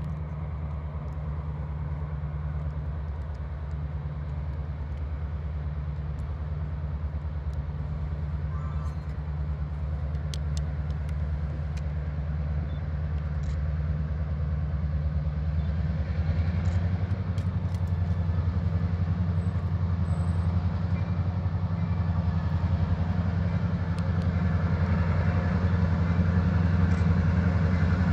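EMD GP38 diesel switcher locomotive's two-stroke V16 engine running with a steady low drone. It grows louder from about halfway through as the locomotive nears.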